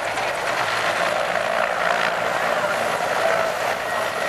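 Mil Mi-17 helicopter flying a low display pass: the steady noise of its twin turboshaft engines and main rotor.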